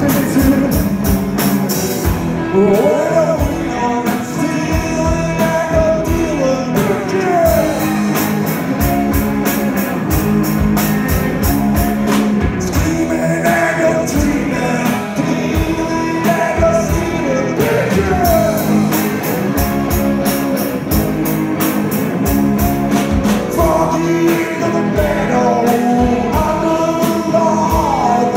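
A rock band playing live: two electric guitars and a drum kit driving a steady beat, with singing, heard from the crowd in a club.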